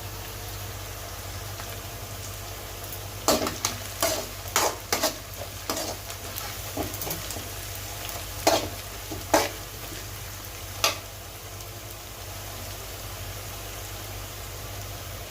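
Mutton brain frying in a pan with a steady sizzle. A spoon stirs and knocks against the pan about a dozen times, between about three and eleven seconds in.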